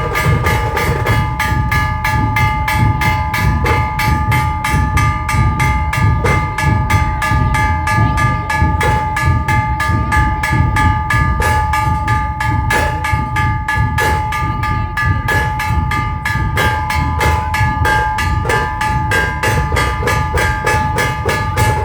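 Dhol tasha ensemble playing: rapid, even tasha strokes over heavy dhol beats, with a steady ringing tone running under the rhythm.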